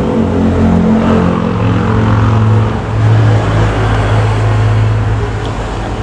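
A motor vehicle engine running steadily with a low hum, which grows stronger about a second and a half in.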